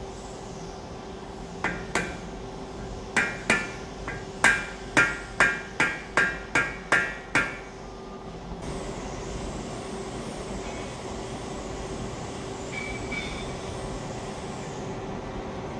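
Hammer blows on a stainless steel spline drive housing, tapping it down to seat it on the auger's bearing assembly: about a dozen sharp, ringing metallic strikes, two to three a second, stopping about halfway through. A steady shop hum follows.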